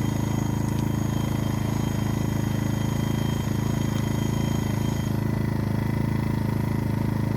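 A-iPower SUA1500i inverter generator's small gas engine running at a steady, even pitch, super quiet.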